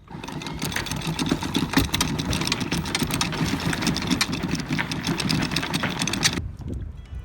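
Small boat's outboard motor running under way, with choppy noise of water and wind. It cuts off suddenly about six seconds in.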